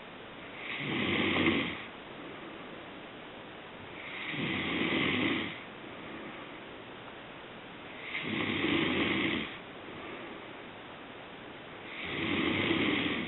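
Snoring in a slow, even rhythm: four long snores, one about every four seconds, each lasting about a second and a half.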